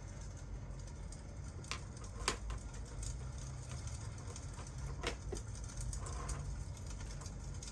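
Crackling fireplace: scattered sharp pops and snaps, a few louder ones standing out, over a steady low rumble of fire and rain.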